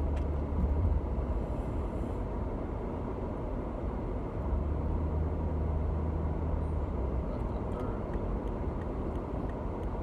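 Road noise inside a moving car: a steady low rumble of tyres and engine, with a deeper drone that swells near the start and again for a couple of seconds in the middle.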